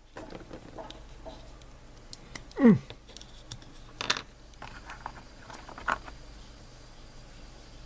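Small clicks and taps of model parts and tools being handled on a workbench, with one short squeak that falls steeply in pitch about two and a half seconds in, the loudest sound, and a sharper clack about four seconds in.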